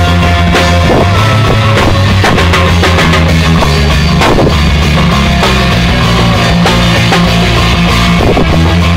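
Loud rock music with a drum kit and heavy low bass notes, recorded very close to full level so that it sounds crushed and distorted.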